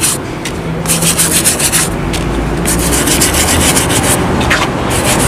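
Plastic-bristle brush scrubbing cleaning gel into a suede boot: fast back-and-forth scratchy strokes that come in spurts with short pauses between them.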